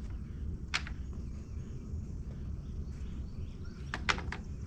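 Steady low outdoor rumble with a few sharp clicks: one about a second in, then a quick run of three or four near the end.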